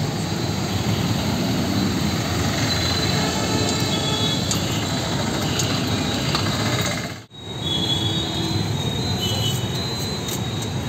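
Steady din of road traffic, with faint short tonal sounds over it. The sound drops out sharply for a moment about seven seconds in.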